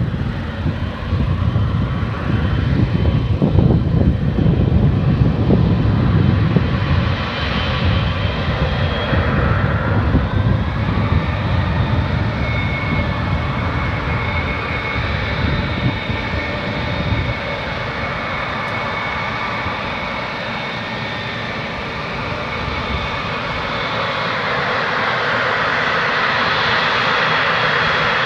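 Boeing 777 freighter's twin GE90 turbofan engines at taxi power: a steady jet whine of several high tones over a hiss, growing louder near the end as the aircraft comes closer. A heavy low rumble runs under it for the first several seconds.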